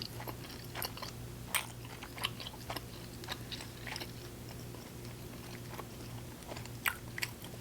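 Close-miked chewing of chicken, with irregular wet mouth clicks and smacks, a louder smack near the end.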